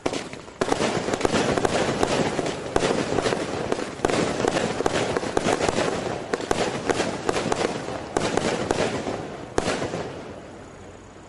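A 20-shot firework cake going off: a dense, continuous crackle of many sharp pops that starts about half a second in and dies away about ten seconds in.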